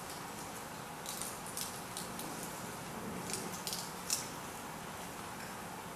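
Prefilled communion cup having its thin plastic seal peeled off the juice section: a few faint, short crackles of plastic film, in two clusters about a second in and around three to four seconds in.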